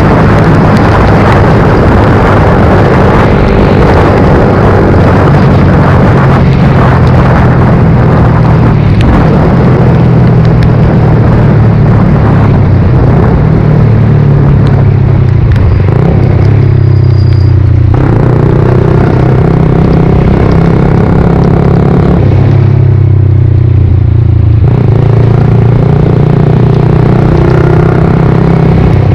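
Suzuki GSX-R125's single-cylinder four-stroke engine running under way, its note stepping up and down in pitch, under a constant loud rush of noise. The rushing thins twice, around the middle and again later, while the engine note drops.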